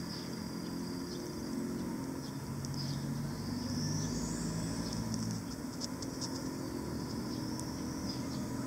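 Outdoor background: a steady low hum with brief high-pitched chirps and ticks scattered through it, and one rising high chirp about four seconds in.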